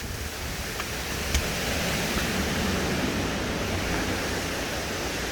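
Steady rushing noise, with a single brief click about a second and a half in.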